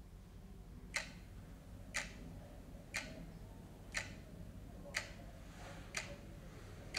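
A clock ticking at one tick a second, over a faint low room hum.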